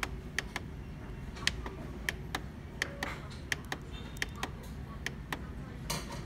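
Plastic control-panel buttons on an HP Laser MFP 135 series printer clicking as they are pressed again and again to step through its menu. The clicks are short, sharp and unevenly spaced, about two or three a second, over a steady low hum, with a brief rustling burst near the end.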